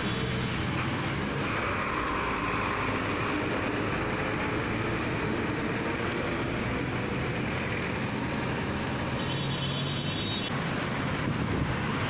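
Steady road traffic close by: engines of minibus taxis, cars and motorcycles passing on a busy street.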